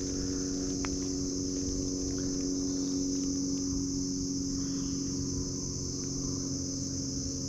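Steady high-pitched chirring of crickets or other insects in the woods, with a steady low hum underneath.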